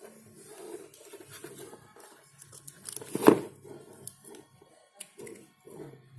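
Handling noise of work on a bench: rustling and scattered clicks, with one loud sharp crackle a little over three seconds in. A faint steady hum runs underneath.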